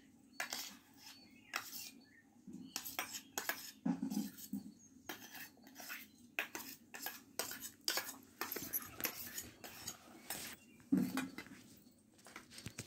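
Metal spoon clinking and scraping against a stainless steel bowl in irregular taps as chopped cucumber is scraped out into a mixing bowl, with a heavier knock near the end as the steel bowl is set down.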